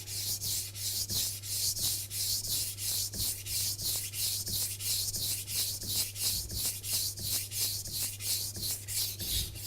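Kitchen knife blade scraping back and forth on a wet whetstone in quick, even, hissing strokes. The sound stays the same from stroke to stroke, the sign that the blade is held at a steady 15-degree sharpening angle.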